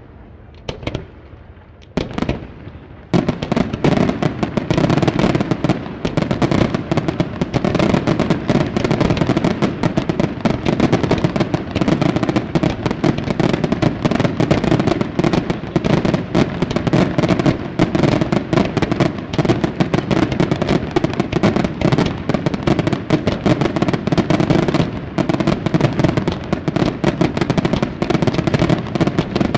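Aerial fireworks display: a couple of single bangs, then about three seconds in a dense, continuous barrage of rapid shell bursts and reports begins and keeps going.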